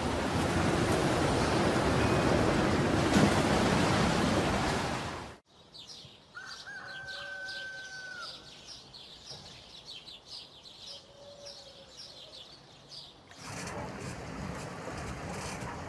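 Strong wind and waves blasting on the microphone, which cut off abruptly about five seconds in. Birds chirping follow, with a couple of short whistled notes. Near the end, wind and water noise return as the boat sits on the lake.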